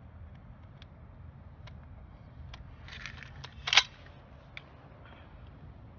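M1 Garand rifle being handled: scattered small metallic clicks from its action, with a cluster of clicks and one louder clack a little before four seconds in.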